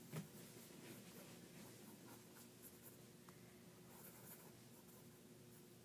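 Near silence with faint scratching of a pen on sketchbook paper during drawing.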